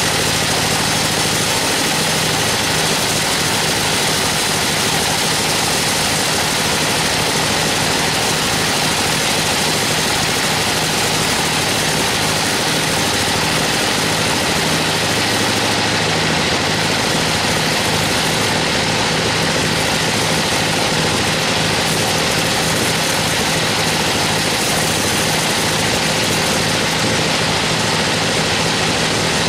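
Sawmill band saw running and cutting lengthwise through an Albizia procera (wangkal) log: a steady, loud, dense hiss over the even low hum of the saw's drive.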